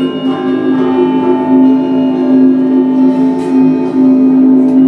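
Instrumental music: a steady droning tone with held higher notes layered over it, no voice.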